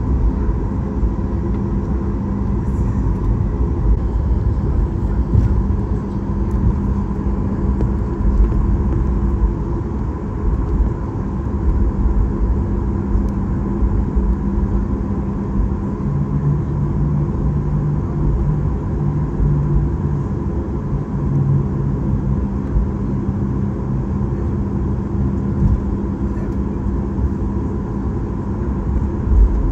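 Cabin noise inside a Boeing 737 MAX 9 taxiing: a steady low rumble with uneven bumps, a steady hum and a faint higher whine. A deeper hum joins for a few seconds about halfway through.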